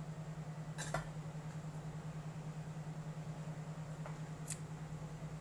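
Electric cooktop giving off a steady low hum that pulses rapidly while it heats a saucepan of sauce. About a second in, a metal whisk clinks against a steel pot, and a lighter tick follows near the end.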